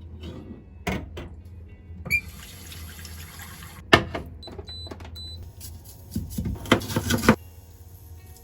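Kitchen work sounds: a few sharp knocks, a short run of water from the tap, and a burst of clattering near the end. Three short high beeps come about halfway through.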